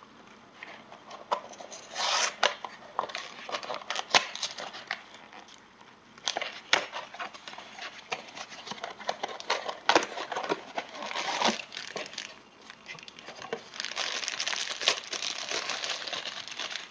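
Packaging being opened by hand: a cardboard mystery-mini blind box pulled open and the foil bag inside crinkled and torn to free a small vinyl figure, in irregular rustles and sharp clicks.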